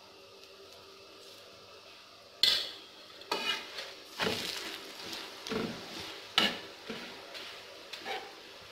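A metal spatula clatters and scrapes against a flat metal tawa while a paratha is flipped and pressed as it fries in oil, with light sizzling. The first, loudest clatter comes about two and a half seconds in, followed by shorter scrapes and clinks about once a second.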